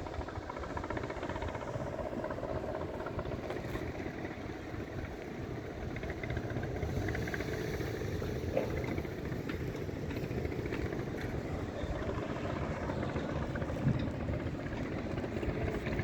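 A motor vehicle travelling along a road: a steady engine and tyre rumble.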